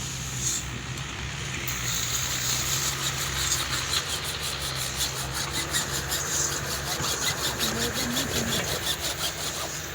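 Quick, rhythmic hand-sawing strokes starting about two seconds in, over an engine running steadily.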